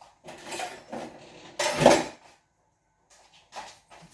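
Kitchen utensils and dishes clattering: a few short knocks and scrapes in the first two seconds, the loudest about two seconds in, and one more near the end.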